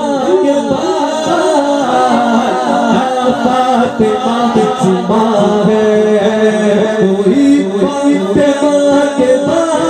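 A man sings a verse of Urdu devotional poetry (a manqabat praising Hussain, Hasan and Ali) in a melodic, drawn-out style through a microphone and PA. The long notes waver up and down and run on without a break.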